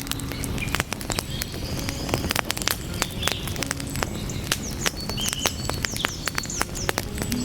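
Wood fire crackling, with irregular sharp pops from the burning logs over a low steady rumble of the flames. Short high bird chirps come in small clusters, the clearest group a little past the middle.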